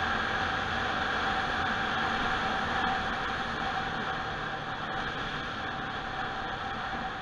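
Steady wind rush over the microphone of a camera on a moving motorcycle, with a faint steady engine tone underneath; it eases a little in the second half.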